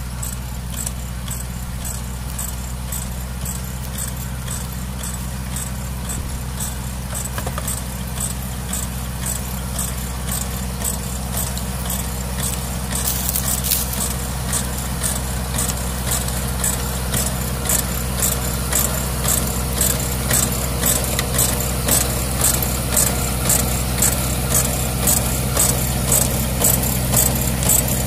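Small tractor engine running steadily while pulling a compost spreader trailer. A regular clicking, about two a second, grows louder in the second half.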